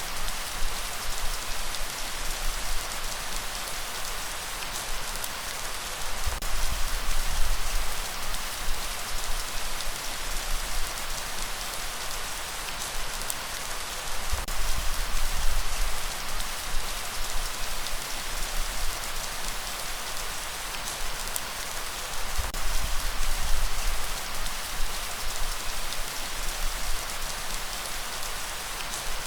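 Steady light rain falling, an even hiss of many raindrops, with a low rumble swelling up about every eight seconds.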